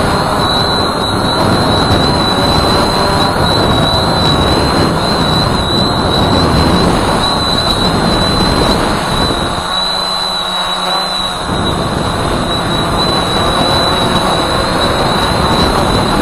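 Walkera Voyager 3 quadcopter's motors and propellers heard from its onboard camera: a steady loud rush with a thin, constant high whine over it, the low rumble easing for a second or two about ten seconds in.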